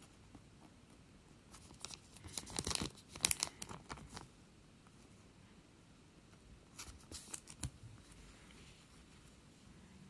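Foil trading-card pack wrapper crinkling and tearing in two spells, the first and louder from about two to four seconds in, the second around seven seconds in.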